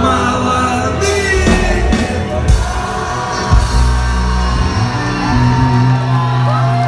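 Loud rock-style pop song with a group of young voices singing and shouting along; a brief noisy burst about a second in.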